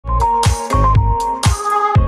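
Electronic intro music with a steady beat and sustained synth notes.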